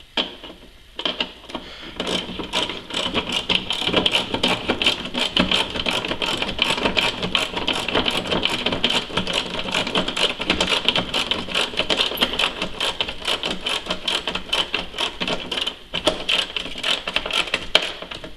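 Ratchet wrench clicking rapidly and evenly as the tail-light mounting bolt is tightened, with a short break near the end.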